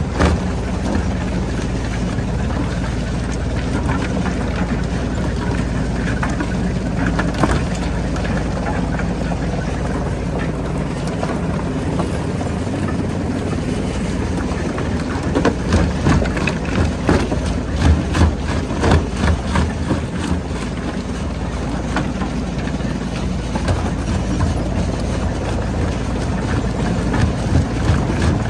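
Stone jaw crusher running with a steady machine hum, rocks cracking and clattering as they are crushed in the jaw; the cracking comes thickest in a run of hits in the middle.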